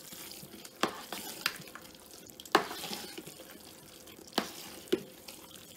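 Metal spoon stirring a wet, soupy cornbread dressing mixture in a large stainless steel stockpot, a soft wet stirring noise broken by about five sharp clinks of the spoon against the side of the pot.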